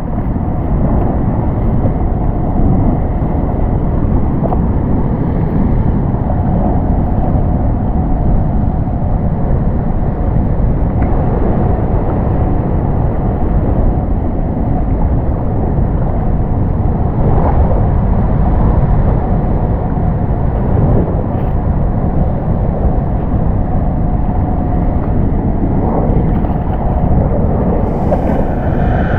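Steady low roar of floodwater rushing through the dam spillway on a river in flood, with wind buffeting the microphone.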